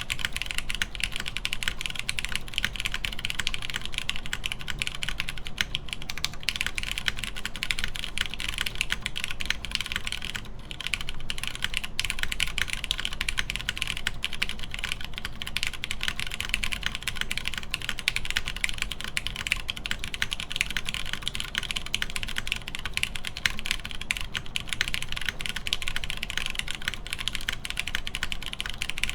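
Continuous fast typing on a mechanical keyboard with lubed Cherry MX Brown tactile switches, an FR4 half plate and GMK doubleshot ABS keycaps: a dense stream of clacky keystrokes, with a brief lull about ten seconds in.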